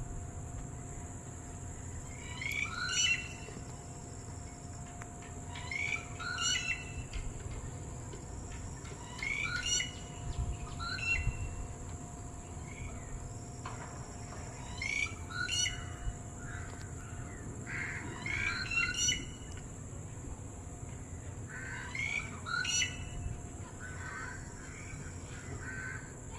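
Red-whiskered bulbul calling: short chirpy phrases of a few quick notes, repeated about every three to four seconds.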